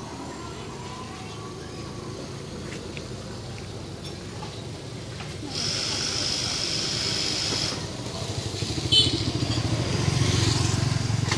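Street traffic dominated by motorbike engines running and passing, with a hiss for about two seconds midway and a louder motorbike engine near the end.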